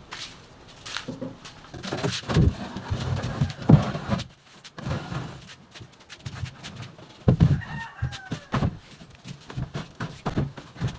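Irregular knocks and thumps, with chickens clucking in short calls.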